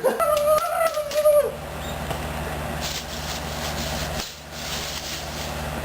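A drawn-out shout of dismay trails off in the first second and a half. Then a steady low engine hum with hiss runs on, like a vehicle idling, broken briefly about four seconds in.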